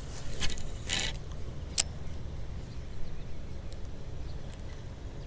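A cast with a spinning rod and reel: a swish as the line goes out, a single sharp click about two seconds in as the bail snaps shut, then the reel's gears turning steadily as the line is wound in.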